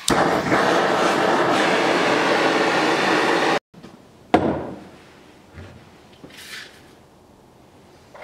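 A hand-held power tool running loudly and steadily against the workpiece, cut off abruptly after about three and a half seconds. Then a single knock as a piece of oak board is set down on the wooden workbench, followed by faint handling sounds.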